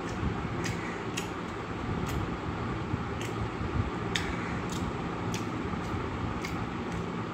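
Close-up eating sounds of a man eating rice and dry fish by hand: short sharp chewing clicks every half second to a second, over a steady background hum.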